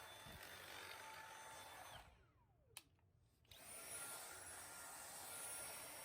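Near silence: a faint steady hiss that drops out for about a second and a half in the middle, with a single click, then returns.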